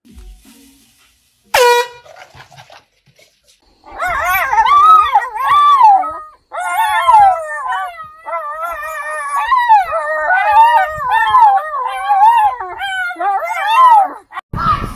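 A short blast from a handheld air horn can, then a dog howling in a long series of wavering calls that rise and fall in pitch for about ten seconds.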